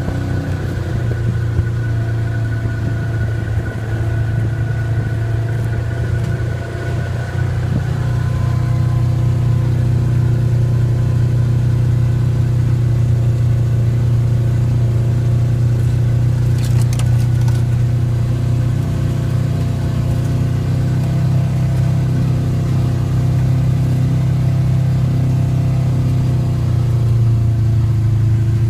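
ATV engine running steadily, getting a little louder about eight seconds in and holding there.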